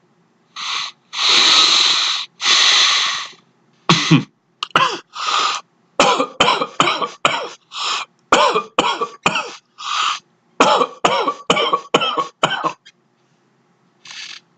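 A person's dry cough early in a cold, with no loose phlegm: two long breaths, then a long run of about twenty short coughs in quick fits, and one more cough near the end.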